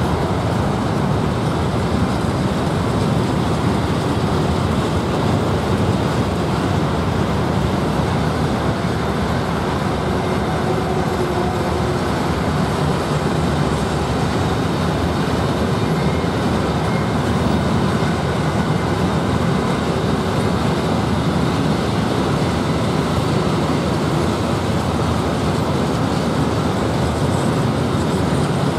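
A train approaching along the line, heard as a steady, even rumbling noise.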